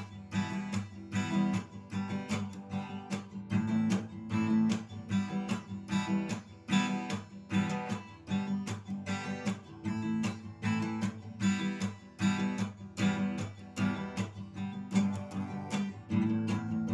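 Acoustic guitar strummed in a steady rhythm with no singing: the instrumental break between the chorus and the second verse.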